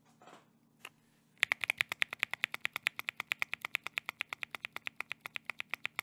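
Akko CS Ocean Blue tactile switches in a Bakeneko60 mechanical keyboard, pressed rapidly: after a couple of faint ticks, a fast, even run of sharp key clicks, about eight a second, starts a second and a half in. This fast typing brings out a rattle inside the switch.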